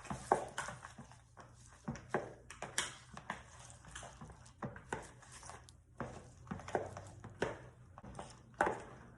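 Slime ingredients being stirred and mixed in a bowl: irregular clicks and knocks of the stirring utensil against the bowl, several a second.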